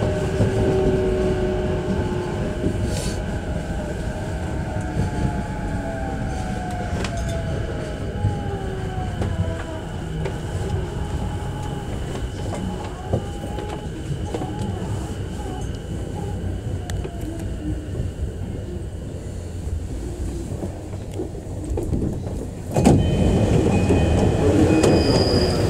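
E233-5000 series electric train running: its traction motor whine, several tones falling in pitch together, dies away over the low rumble of the wheels as the train slows into its terminal. About 23 seconds in, the noise suddenly gets louder, with a few short high tones.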